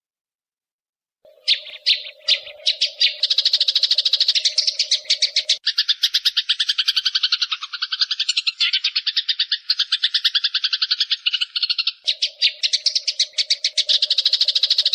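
Eurasian tree sparrow giving a long, rapid chattering call, the agitated 'fighting' chatter. After a second of silence a few separate chirps speed up into a continuous fast rattle, which changes in pattern about six seconds in and returns to the first pattern near the end.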